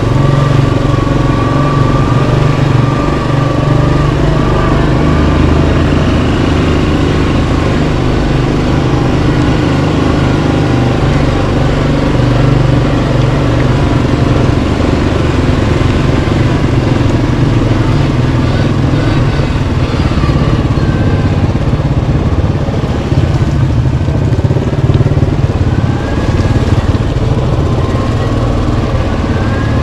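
Yamaha Kodiak 700 ATV's single-cylinder engine running steadily under way on a trail, with a thin whine gliding up and down in pitch in the second half.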